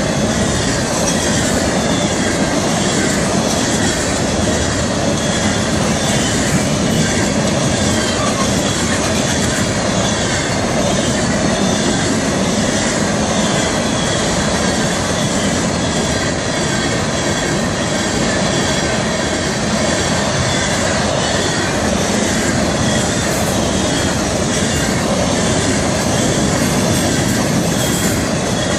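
Florida East Coast Railway freight cars (gondolas and hoppers) rolling past close by: a loud, steady rumble of wheels on rail, with faint high, steady tones riding over it.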